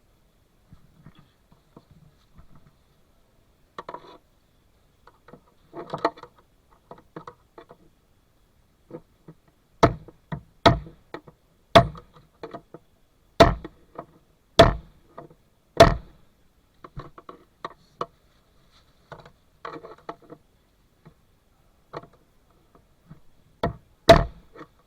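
Hand tools at work on a car's fuel pump assembly: a run of about six sharp knocks, roughly one a second, in the middle, two more near the end, and light clinking and rattling of tools between.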